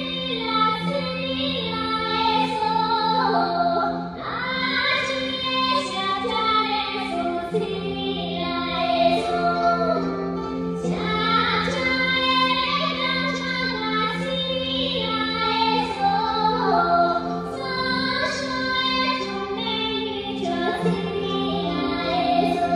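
A song sung by a high voice over instrumental accompaniment, with two steady low notes held beneath the moving melody.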